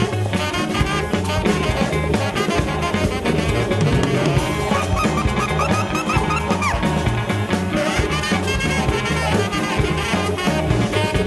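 Afrobeat band music with a horn section playing riffs over a steady drum and bass groove.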